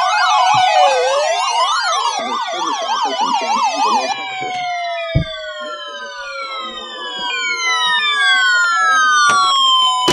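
Layered electronic siren-like alarm tones: several pitches sweeping rapidly up and down together, then about four seconds in changing to long falling glides that slide slowly down in pitch.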